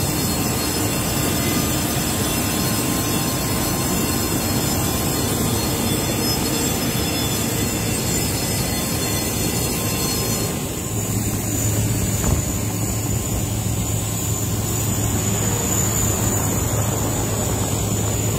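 Steady machinery noise of an airport apron around a parked airliner, a constant drone with a thin high whine over it. About ten seconds in the sound changes: the whine grows stronger and a steady low hum joins underneath.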